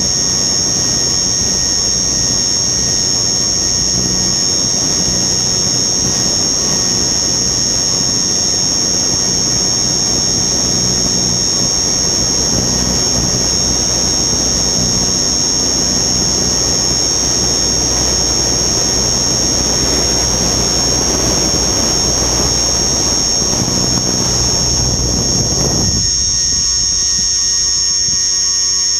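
Onboard sound of a radio-controlled helicopter in flight: a steady high-pitched whine over a rushing of wind and rotor noise with a low hum. About three seconds before the end, the low rushing drops away suddenly and leaves the whine.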